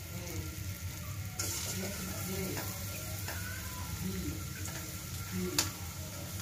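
Sliced onions sizzling in hot soybean oil in a karahi, the frying hiss growing louder about a second and a half in. A single sharp click comes near the end.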